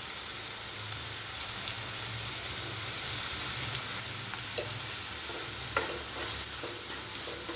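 Chopped onions sizzling steadily in hot oil in a nonstick kadai, with a wooden spatula stirring them and a few faint scrapes against the pan.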